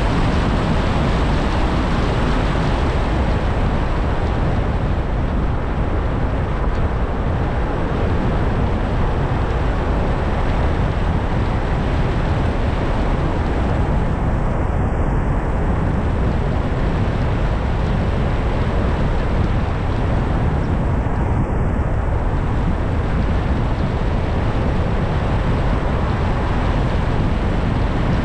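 Steady road and wind noise of a car driving at speed, an even rush with no distinct events.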